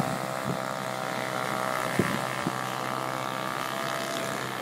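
Radio-controlled model boat's motor running at a steady pitch, a high whine with a few brief knocks.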